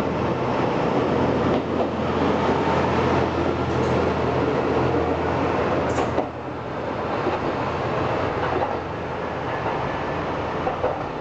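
JR Kyushu KiHa 125 single-car diesel railcar departing, its diesel engine running with a steady low hum under the noise of the moving train as it passes close by. The sound drops off about six seconds in as the railcar draws away.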